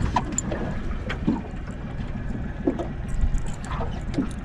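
Steady low rumble of a small fishing boat under way, its outboard running with water noise around the hull, and a few brief faint vocal sounds.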